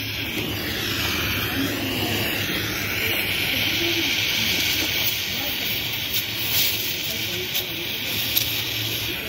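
Welding arc on aluminium hissing steadily, with a low hum underneath and a wavering higher tone in the first few seconds.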